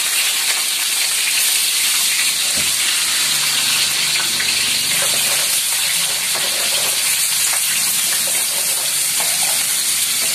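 Diced potatoes and carrots frying in hot oil in a wok, a steady sizzle as more pieces are tipped in from a bowl.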